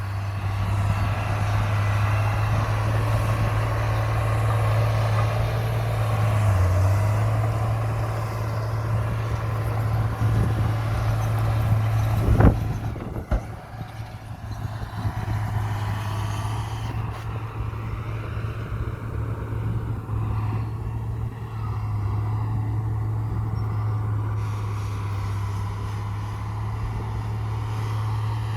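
Heavy diesel engine of a Komatsu bulldozer running steadily while pushing soil. A single sharp clank comes about twelve seconds in, after which the engine runs a little quieter.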